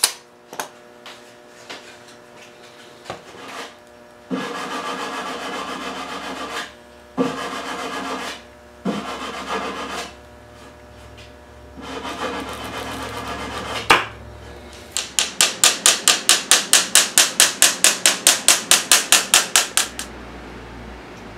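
A hand glass cutter scoring a pane of wavy restoration glass along a metal straightedge, in several scraping strokes of a few seconds each. Then comes a quick, even run of sharp taps, about five a second, for some five seconds.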